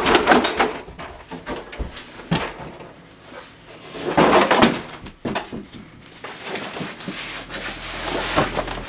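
A door clicking and knocking open, then knocks, footsteps and rustling as a large black pad is carried down a narrow hallway. There is a louder rustling, scraping burst about halfway through.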